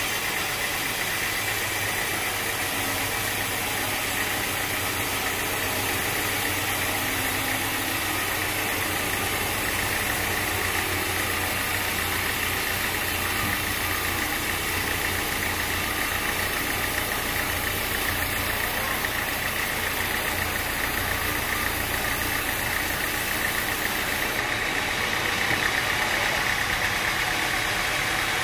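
Sawmill machinery running steadily, a constant mechanical drone with no breaks.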